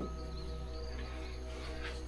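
Soft background music of long held notes over a low steady hum.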